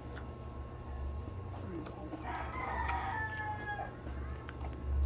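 A rooster crows once in the background, a call of about a second and a half that starts a couple of seconds in and falls in pitch at its end. Light clicks and smacks of eating by hand come and go over a steady low hum.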